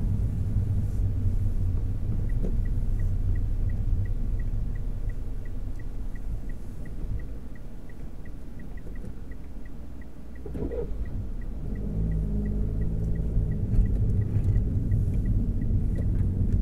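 Car engine and road noise heard from inside the cabin, quieter for a while and then rising as the car pulls away. A turn-signal indicator ticks steadily, about three times a second, starting about two seconds in and stopping near the end.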